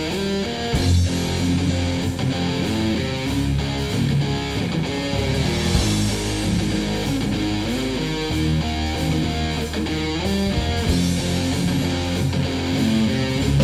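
Background music: a band with guitar to the fore, steady and loud.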